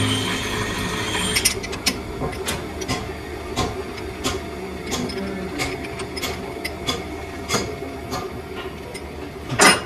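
Metal lathe running with a steady hum and high whine that dies away about a second and a half in, followed by scattered sharp metallic clicks and knocks, with one louder knock near the end.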